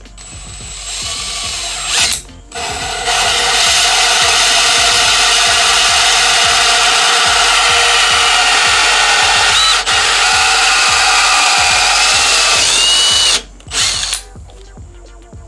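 Cordless drill driving a 2-inch hole saw with a pilot bit through MDF board, finishing the hole from the second side. It runs briefly, pauses, then cuts steadily for about ten seconds and stops near the end.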